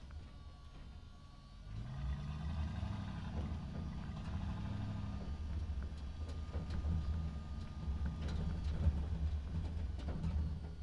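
Truck engine in a parking structure, running low and quieter at first. About two seconds in it revs up with a rising pitch, then holds a steady low rumble as the truck drives, with scattered faint knocks and rattles.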